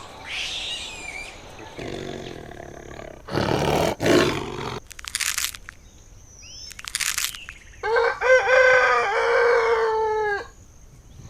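Rooster crowing once, a long cock-a-doodle-doo lasting about two and a half seconds near the end, after several short, harsh bursts of sound.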